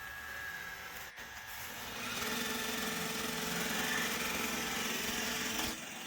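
iRobot Roomba j7+ robot vacuum's motors whirring, starting up louder about two seconds in with a steady hum over the whir, then cutting off suddenly near the end.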